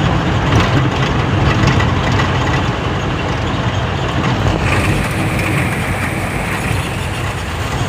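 Sugarcane truck's engine running steadily, heard from inside the cab as a continuous low rumble. A little past halfway a steady rushing hiss of floodwater joins in.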